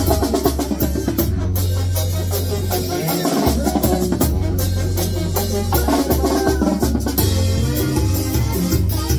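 Live Mexican banda music: a tuba holds long low bass notes under a drum kit's snare, bass drum and cymbals, with trumpets and trombones playing.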